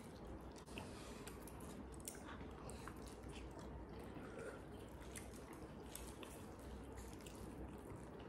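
Faint chewing and small mouth noises of people eating noodles, with scattered short clicks over a low steady hum.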